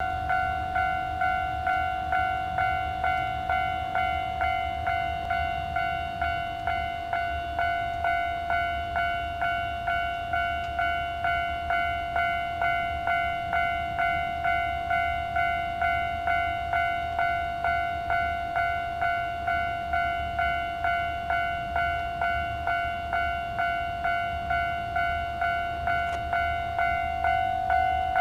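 Railway level-crossing warning bell ringing, a clear struck tone repeated a little under twice a second, warning that a train is approaching. A low, steady rumble sits underneath.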